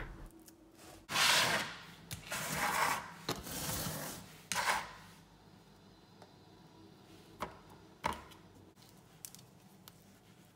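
Metal spoon scraping and digging into hard-frozen Neapolitan ice cream in a plastic tub, four rasping scrapes in the first five seconds, then a couple of light knocks.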